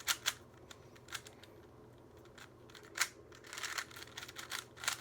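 Plastic Rubik's cube layers clicking as the cube is turned by hand. A few scattered clicks come at the start, then a short pause, then a quick run of turns over the last two seconds.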